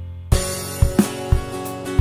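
Background music: strummed guitar over a steady drum beat, which comes in about a third of a second in.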